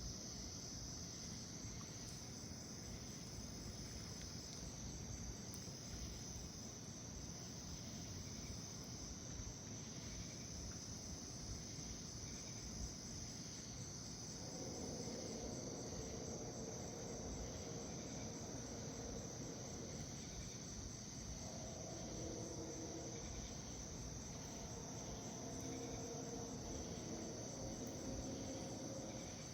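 Crickets chirring steadily at night. About halfway through, a distant low drone of several steady tones sounding together comes in for about six seconds, breaks off briefly, then returns until near the end: an unexplained sound that might be a distant train.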